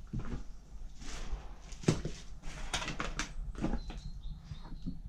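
Irregular footsteps and knocks on a debris-covered floor, with clatter from things being brushed or handled and one sharper knock about two seconds in.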